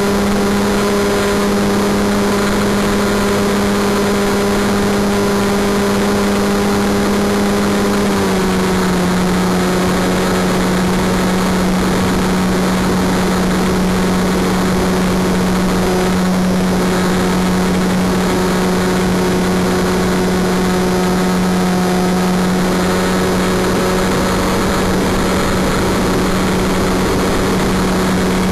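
Wing Dragon 4 RC model airplane's motor and propeller running as a loud, steady hum, picked up close by the camera carried on the plane. About eight seconds in the pitch drops slightly as the throttle eases, then holds steady.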